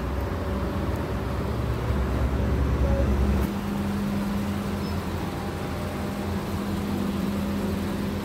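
Car park and road traffic noise: a steady deep engine rumble that drops away about three and a half seconds in, leaving a steady hum under the traffic.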